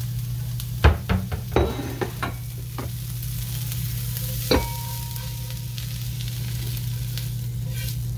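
Onions and green peppers sizzling in a nonstick frying pan while a silicone spatula stirs them and scrapes them out, over a steady low hum. A quick run of knocks comes about a second in, and one sharper knock with a brief ring about four and a half seconds in.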